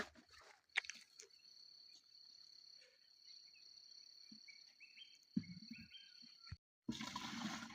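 Crickets or other insects giving a faint, steady, high-pitched trill, with a few short chirps. The trill cuts off suddenly near the end, and a burst of rustling noise follows.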